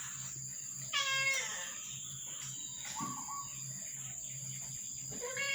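A cat meowing: one clear meow about a second in that falls in pitch, a shorter, fainter call around three seconds, and another meow starting near the end. A steady high-pitched whine and a low hum run underneath.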